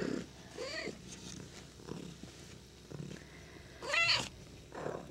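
A cat meowing several times in short calls that rise and fall in pitch, the loudest about four seconds in.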